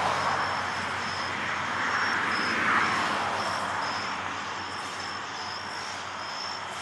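Distant traffic, a broad whoosh that swells about two and a half seconds in and slowly fades, with insects chirping steadily, two or three chirps a second.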